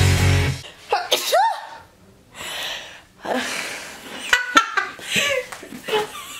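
Intro music cuts off half a second in, then two women laugh and giggle in short breathy bursts and high squeals.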